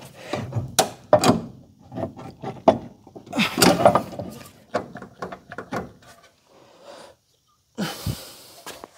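Irregular clanks, knocks and scrapes of heavy car suspension parts being wrestled into place by hand, with a pause about seven seconds in.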